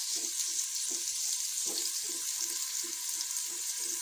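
Onions sizzling steadily as they fry in hot ghee in a cooking pot, with a spoon stirring them a few times a second.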